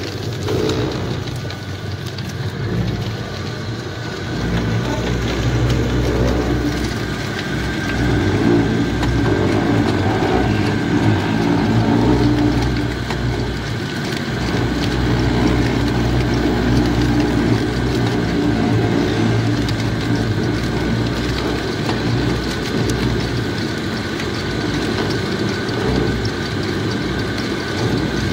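Engine-driven sugarcane crusher running steadily, its rollers turning as cane stalks are fed through. The engine's sound rises and falls in loudness over stretches of a few seconds.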